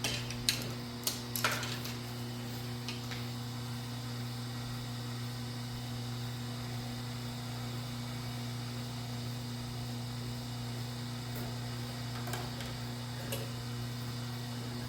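Steady electrical mains hum, with a few light clicks and rustles in the first few seconds and again near the end from wire being handled.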